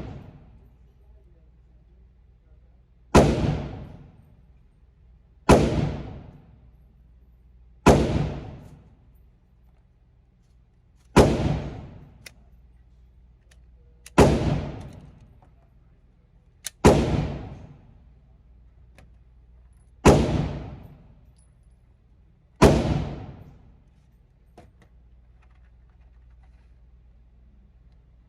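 Glock 19 9mm pistol firing single shots at a slow, deliberate pace, eight shots about two and a half to three and a half seconds apart, each crack trailing off in an echo of about a second; the pistol is being sighted in with a red dot.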